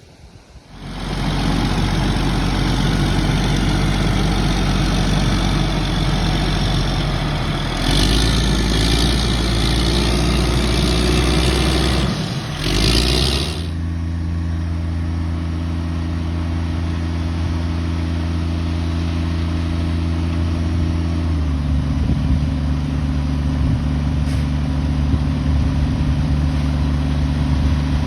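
An engine running steadily, its pitch shifting a few times.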